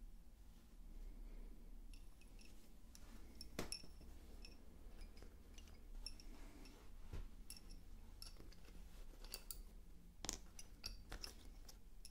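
Wooden lace bobbins clicking against one another as they are handled and laid down on a lace pillow. Light, irregular clicks start about two seconds in, with a few sharper knocks among them.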